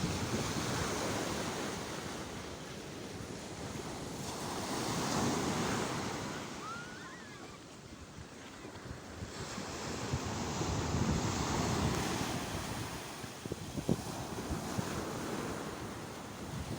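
Sea waves surging and washing in, the rush of surf swelling and fading roughly every five to six seconds.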